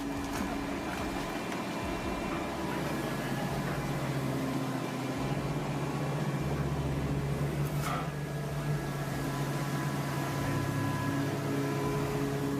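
Car baler running with a steady mechanical hum, a low drone and a thin whine over it, with one sharp click or knock about eight seconds in.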